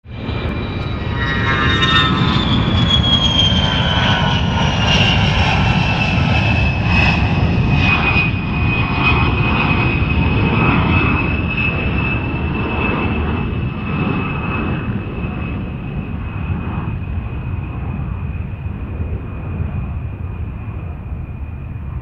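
Jet aircraft engine noise: a heavy rumble with a high whine that drops in pitch over the first eight seconds and then holds steady. The whole sound slowly fades through the second half.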